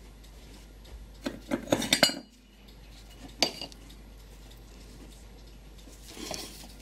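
Small metal clinks of a steel parts dish and tweezers on the workbench: a quick cluster of clinks about a second in, then a single sharp clink a second later, with soft handling noise near the end.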